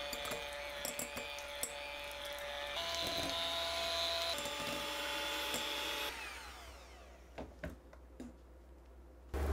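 Electric hand mixer beating softened butter in a glass bowl: a steady motor whine with the beaters clicking against the glass, stepping up in speed about three seconds in and back down a second and a half later. The motor stops about six seconds in and winds down, followed by a few light taps.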